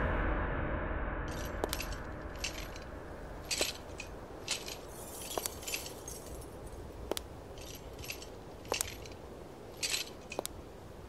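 Heavy metal link chain clinking and jingling: scattered sharp chinks and short rattles, about a dozen, irregularly spaced, over a low rumble that fades away in the first couple of seconds.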